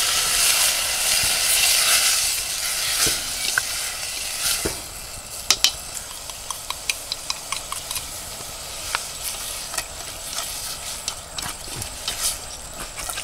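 A pot of milk oysters and greens over a wood fire hisses and sizzles for the first four seconds or so as the oysters are tipped in. The hiss then dies down, and sharp clicks follow as chopsticks tap the metal pot and cup while seasoning is scraped in and stirred.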